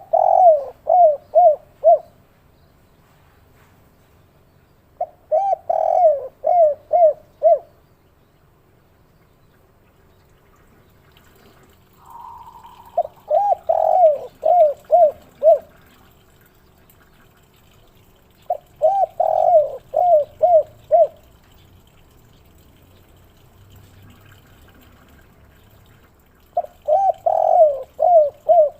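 Spotted dove (derkuku) cooing its 'kuk 3' song: five phrases about six seconds apart, each a quick run of five or six coos.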